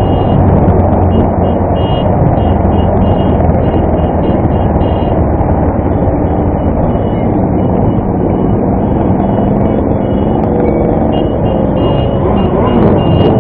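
Motorcycle engine running steadily as the bike rides along, heavily covered by wind noise on the microphone.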